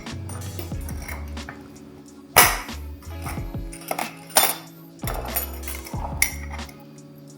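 A few sharp clinks of a utensil against glass jars, the loudest about two and a half seconds in, over soft background music.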